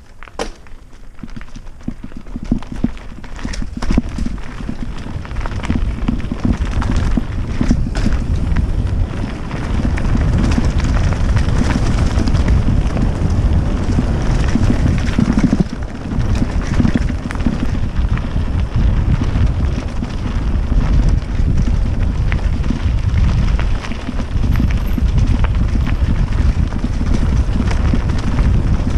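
Wind buffeting the helmet camera's microphone, with the rumble of knobby mountain-bike tyres on gravel and dirt and the rattle of the bike over rough ground on a fast downhill run. It builds over the first ten seconds or so as speed rises, then stays loud and steady, full of small knocks and clatter.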